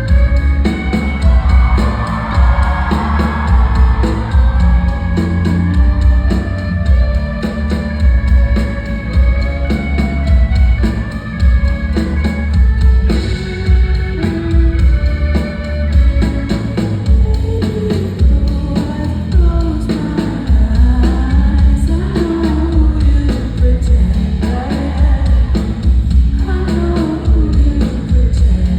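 Live rock band playing a song: a female singer over drum kit, bass and guitar with a steady beat.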